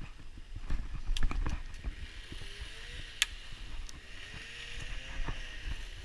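Footsteps and rustling through grass and dry leaves with a low rumble from a body-worn action camera, a few sharp clicks, the loudest about three seconds in, and a faint sliding hum in the second half.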